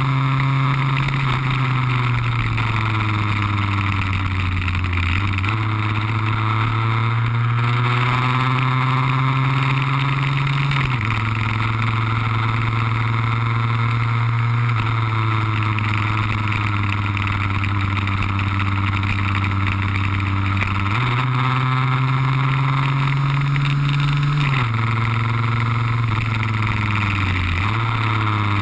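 Lambretta scooter's two-stroke RB20 engine running hard on track, heard from on board. Its pitch climbs and falls with several sudden steps as the gears change, over a constant rushing noise.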